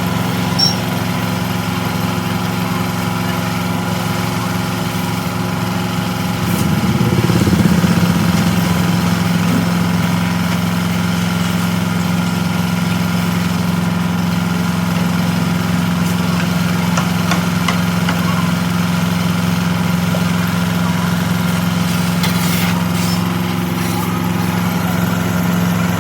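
An engine running steadily with a low hum, briefly rising in level and pitch about seven seconds in before settling back.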